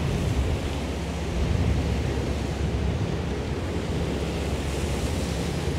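Scimitar 1010 power catamaran under way: a steady low engine hum with water rushing along the hull and wind buffeting the microphone.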